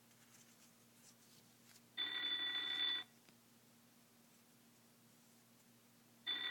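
Moshi voice-controlled alarm clock's alarm going off: an electronic ringing tone in about one-second bursts. One burst comes about two seconds in, and the next starts near the end, roughly four seconds later.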